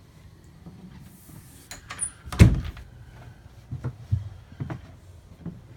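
A motorhome's interior door being handled, with one sharp knock about two and a half seconds in and several lighter knocks and clatters after it.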